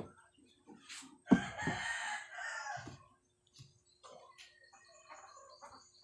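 A rooster crowing once, one long call lasting about a second and a half, starting about a second in. Around it are scattered short knocks and clicks.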